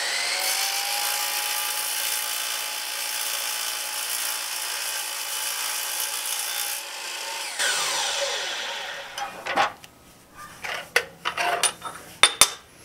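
DeWalt sliding miter saw with a Diablo blade running at full speed and cutting through an aluminum bar, with a steady high-pitched whine. About eight seconds in the saw is switched off and the blade winds down, falling in pitch. A run of sharp clicks and knocks follows as the metal is handled.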